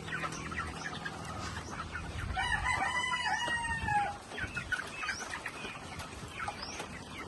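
Chickens clucking, with a rooster crowing once, a long call starting about two seconds in.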